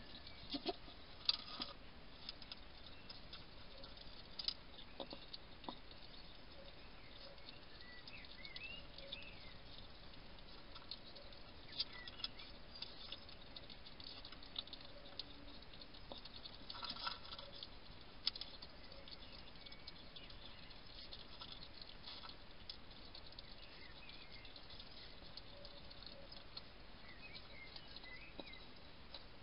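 A wild European hedgehog eating from a dish: faint, irregular crunches and clicks, with a few louder clusters of them.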